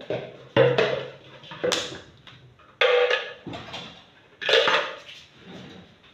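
Kitchenware being handled and set down on a table: plastic bowls, a measuring cup and utensils clattering, with four loud knocks spread over the first five seconds and smaller taps between.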